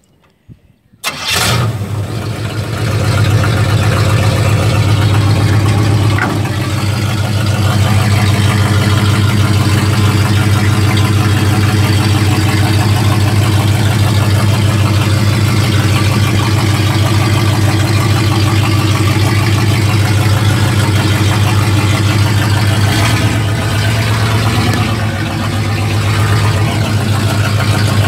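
1955 Pontiac's engine, heard from inside the cab, fires up about a second in and then runs steadily.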